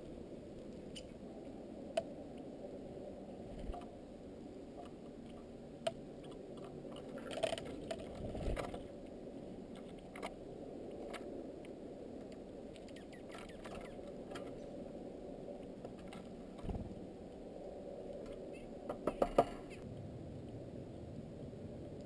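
Scattered sharp taps and clicks over a steady dull hum, with a quick run of louder clicks near the end: birds pecking seed and hopping on a wooden platform feeder heaped with sunflower and corn.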